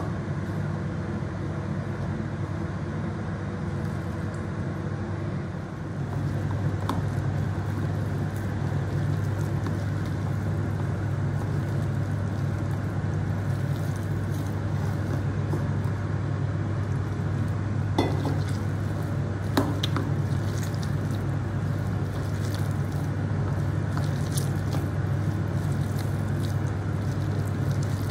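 Hands squishing and mixing sliced potato and onion with gram flour (besan) batter in a bowl, over a steady low hum that gets a little louder about six seconds in. Two sharp clicks a little past the middle.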